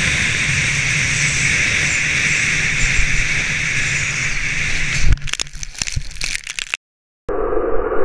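Snowboard carving over packed snow with wind rushing on the action-camera microphone. About five seconds in there is a loud thump, followed by a second and a half of broken knocks and scrapes, typical of a fall. After a brief gap the same ride sound returns duller, with its high end cut off.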